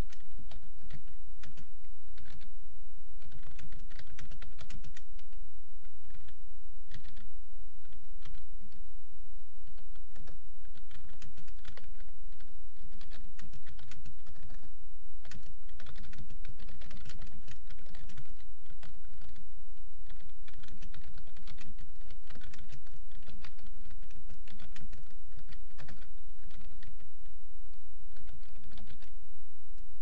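Typing on a computer keyboard: a steady stream of key clicks, a few a second, which stops shortly before the end, over a steady low hum.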